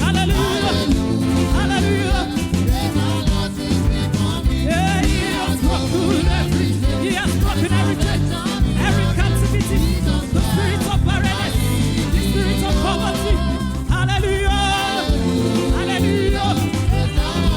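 Gospel worship music: singing over a band with a steady bass line and beat.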